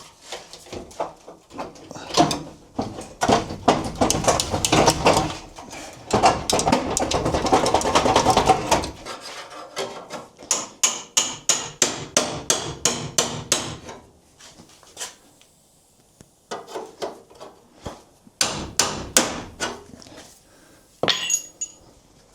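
Repeated hammer blows on sheet steel, in quick runs of several strikes a second with short pauses, knocking a BMW E30's front core support loose from the chassis.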